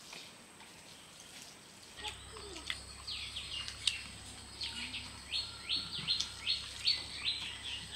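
A bird calling: a run of short, high chirps that each slide downward, about two or three a second, getting going about halfway through. A faint steady hum comes in about two seconds in.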